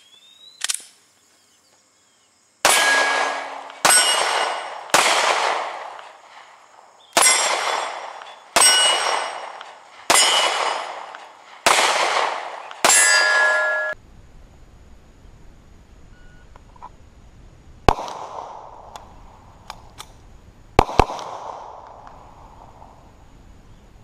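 9mm pistol shots hitting steel plate targets, each crack followed by the ringing clang of the steel. About eight shots come at an even, unhurried pace, then after a pause a few more, including a quick pair near the end.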